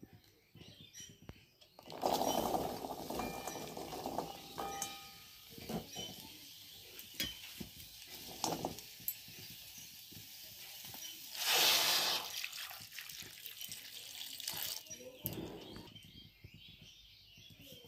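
Kitchen handling sounds as cauliflower and potato pieces are tipped and moved by hand in a non-stick wok: soft irregular rustling and light knocks, a few short metallic clinks, and one louder brief hiss about two-thirds of the way through.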